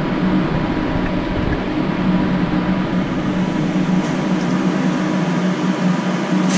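Wet blended chili, shallot and garlic paste bubbling and sizzling in a frying pan over a gas flame, as it is sautéed dry without oil. A loud steady mechanical hum runs underneath.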